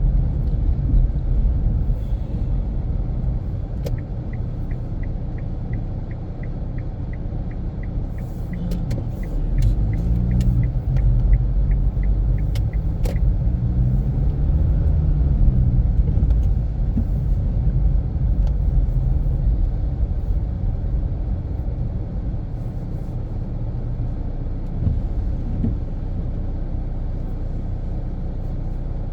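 Infiniti Q50 Red Sport 400 with its VR30 twin-turbo V6, driving on the road with a steady low rumble of engine and tyres. The engine note rises and falls around the middle. For about nine seconds early on there is a rapid even ticking, about three a second, typical of a turn-signal indicator.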